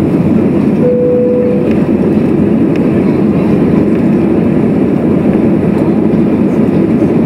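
Jet airliner cabin noise during the climb just after takeoff: a loud, steady rush of the engines and airflow, heard from a window seat over the wing. A short steady tone sounds briefly about a second in.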